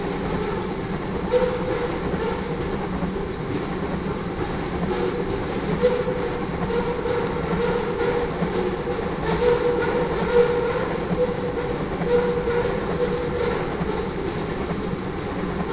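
Crude oil tank cars of a freight train rolling past: steel wheels rumbling and clacking over the rail joints, with a few louder clunks and a thin squealing tone that comes and goes.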